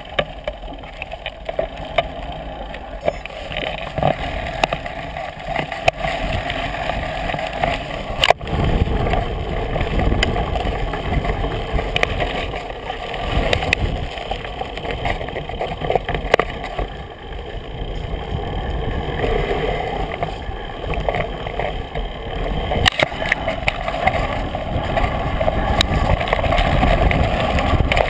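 Mountain bike riding fast over a dirt and leaf-covered singletrack, heard through a camera mounted on the bike: a steady rumble and rattle from the tyres and frame, with sharp knocks as it hits bumps, getting louder toward the end.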